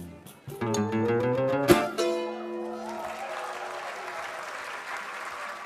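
Guitar music ending: plucked notes climb in a rising run to a sharp final strike about two seconds in. The last chord then rings under an even hiss-like wash that lasts to the end.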